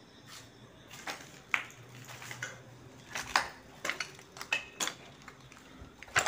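Footsteps crunching and clinking over rubble and broken debris, an irregular run of sharp scrapes and knocks that begins about a second in.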